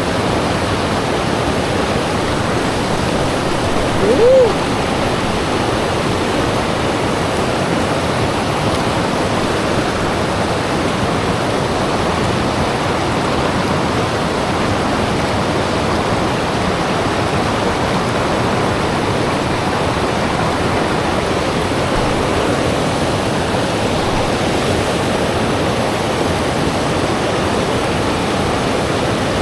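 Steady rush of flowing river water. About four seconds in, a short tone rises and falls once over it.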